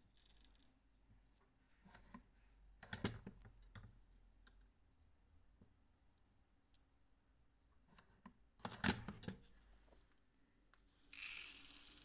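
Small No. 10 shot pellets rattling as they are spooned into a brass balance-scale pan to weigh out a shotgun-shell shot charge. Short clicking rattles come about 3 s in and, loudest, just before 9 s. Near the end there is a brief hissing trickle as the shot pours out of the tipped pan.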